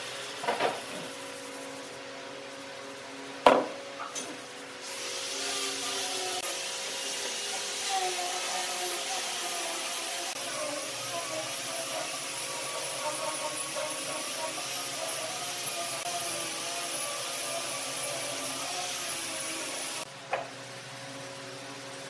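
Pine boards handled on a wooden workbench, with a sharp wooden knock about three and a half seconds in and a smaller one just before. From about five seconds in, a steady whirring machine noise with wavering pitch runs behind and cuts off abruptly near the end.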